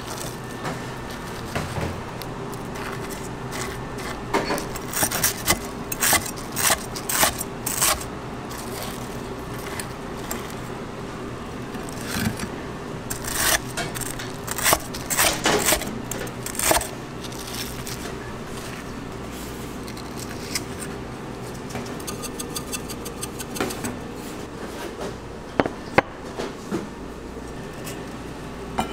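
A chef's knife slicing through a crisp panko-breaded fried pork cutlet on a wooden cutting board: runs of crunching crackles from the crust, with a few sharp knocks on the board, over a steady background hum.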